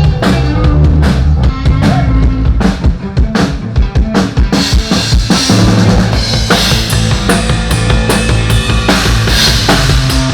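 Rock band playing loudly through the stage PA during a sound check: a drum kit driving steady bass drum and snare hits over sustained low bass notes, with cymbals growing denser about halfway through.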